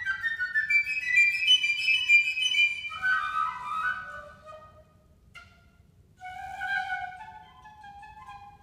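Solo piccolo playing a fast contemporary piece: quick high runs, then a drop to lower notes. After a pause of a second or so, broken by one short sharp note, it goes on with softer, longer notes.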